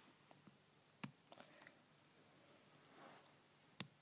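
Plastic pry tool clicking against the iPhone 4's internal parts as it levers at a stuck connector: two sharp clicks, one about a second in and one near the end, with a few faint ticks between, otherwise near silence.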